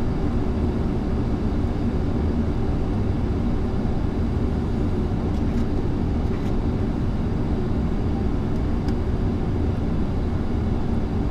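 Steady flight-deck noise of an Airbus A340-300 on approach: an even, low rush with a faint hum underneath. A few faint clicks come through around the middle.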